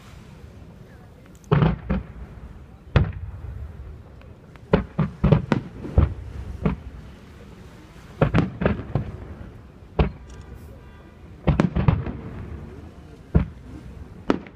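Aerial fireworks shells bursting: an irregular series of sharp bangs, sometimes two or three in quick succession, each trailing off in a low rumble.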